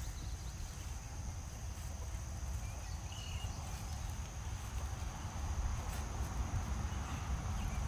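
Steady high insect buzz, like crickets, over a low steady rumble, with a few brief bird chirps.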